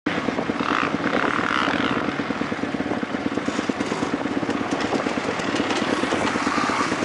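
Dirt-bike engines: a motocross engine running close by at low revs with a rapid, even pulsing, while other bikes rev on the track, one revving up in the first two seconds and another riding up near the end.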